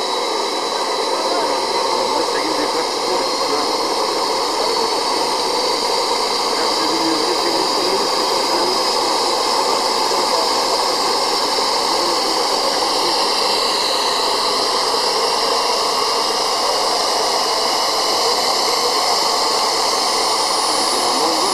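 Small model jet turbine engine running steadily on the ground: a loud, even rushing noise with a high whine whose pitch rises slightly around the middle.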